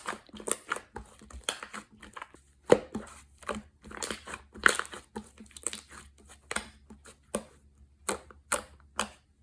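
Slime being squished and pressed by hand, giving an irregular run of sharp sticky clicks and crackles, several each second.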